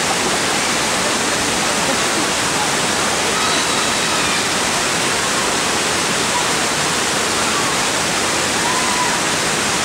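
Waterfall: water falling and splashing steadily in a loud, even rush with no break.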